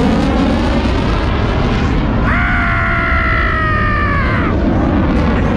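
Loud, steady aircraft roar passing over, with a high whine of a few steady notes for about two seconds in the middle that sags slightly as it fades.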